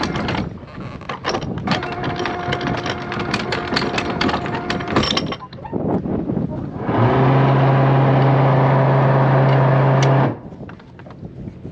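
Boat's anchor windlass motor running steadily for about three seconds, a loud even hum that starts and cuts off abruptly, as chain is worked over the gypsy. Before it, wind on the microphone with scattered clicks and knocks on deck.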